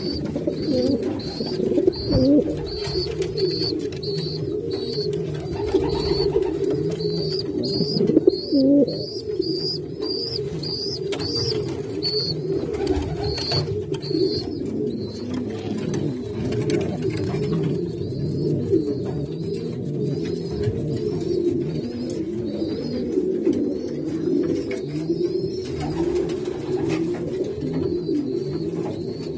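Many homing pigeons cooing in a loft, their coos overlapping into a steady low sound. A short high chirp repeats about twice a second through the first half and turns fainter later.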